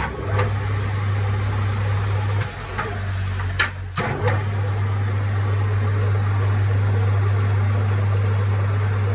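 Lathe running with a steady low hum, with a few sharp clicks and knocks. The hum comes on just after the start, breaks off briefly about four seconds in, then runs evenly.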